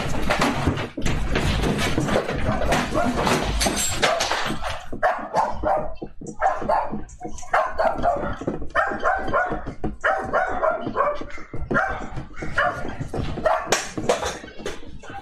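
A house rattling and rumbling as it shakes in an earthquake. From about five seconds in, a dog barks repeatedly.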